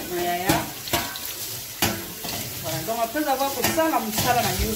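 Kitchen work sounds: a steady hiss with sharp clicks and knocks of utensils and cookware.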